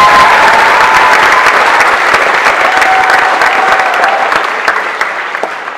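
An audience applauding, loud and steady, the clapping dying away near the end.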